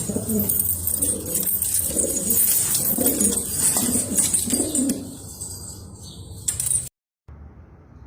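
Domestic pigeons cooing, a run of repeated low coos for about five seconds; then the sound drops away and cuts out briefly near the end.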